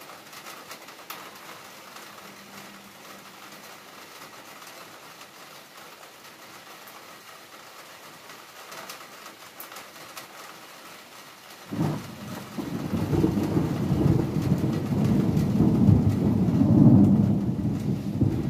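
Steady rain falling with a faint crackle of drops. About twelve seconds in, a sudden crack of thunder opens into a loud, low, rolling rumble that builds for several seconds.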